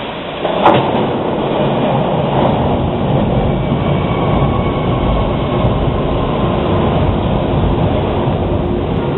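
Hawker Siddeley H-series subway train running into a station along the platform, a steady rumble of wheels and motors. There is one sharp loud knock just under a second in.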